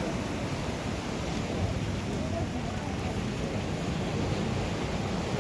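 Ocean surf with wind buffeting the microphone: a steady, low rushing noise without any single distinct wave crash.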